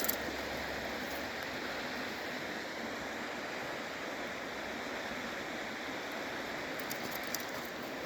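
Steady rush of flowing water, even and unbroken, with a few faint clicks about seven seconds in.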